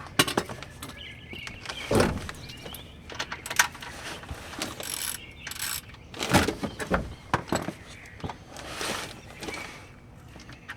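Irregular clicks, clanks and knocks of hand tools and metal parts being handled during car maintenance, with a few louder knocks and short bursts of hiss.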